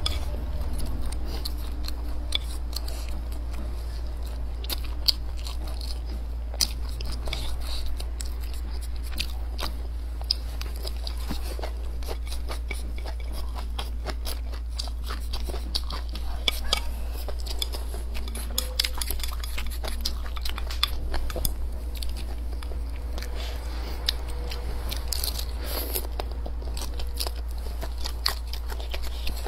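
A person chewing and biting a mouthful of rice and sausage close to the microphone, with many short sharp mouth clicks throughout. A steady low hum runs underneath.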